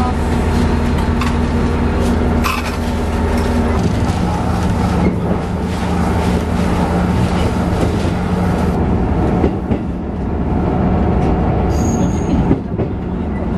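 Cabin noise of a diesel railcar under way: a steady engine and track drone that drops in pitch about four seconds in, with faint clicks from the rails and a brief high tone near the end.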